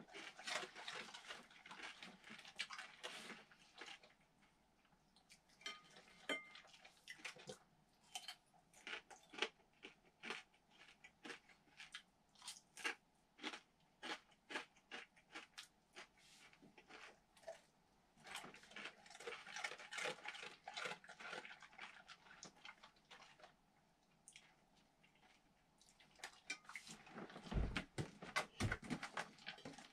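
A person chewing crisp fried bacon: stretches of crunching bites, at times about two a second. Near the end come a few heavy thumps as a Weimaraner jumps down from the sofa onto a wooden floor.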